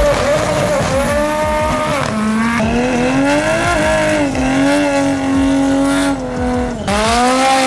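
Toyota Supra's straight-six held at high revs during a burnout, its pitch wavering up and down, with the rear tyres squealing as they spin on the track. The sound dips briefly about seven seconds in.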